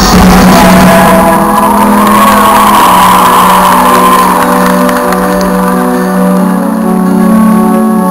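Loud live dance music played over an arena's sound system. About a second in the beat drops out, leaving held chords, and the full beat comes back at the very end.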